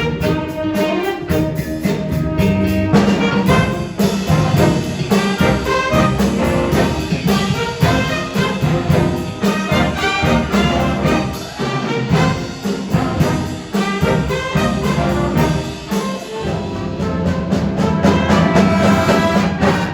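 Junior high school jazz band playing: brass and saxophones over bass, keyboards and drums with a steady beat.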